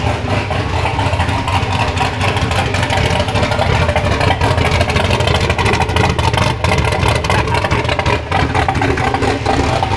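GMC pickup's freshly started engine running loud and steady with a choppy exhaust note, as it is being tuned after first firing up.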